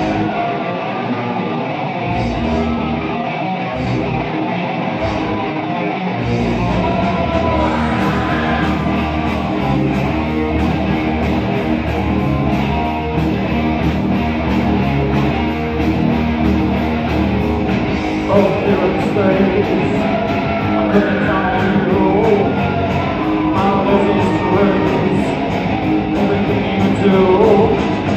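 A live heavy metal band playing an instrumental passage: distorted electric guitar with bass and drums. For the first few seconds the low end comes in as separate hits, then the full band plays steadily.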